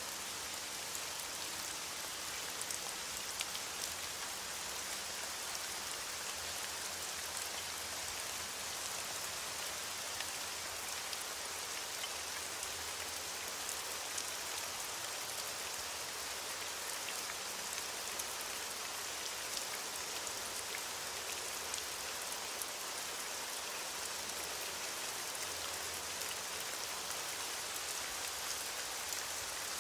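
Steady heavy rain falling, a dense even hiss with many small drop ticks scattered through it.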